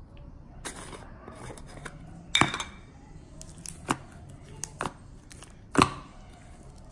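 Clicky pink Elmer's glue slime being poked and pressed with fingers in a plastic tub, giving about half a dozen short, sharp pops and clicks, the loudest about two and a half and six seconds in.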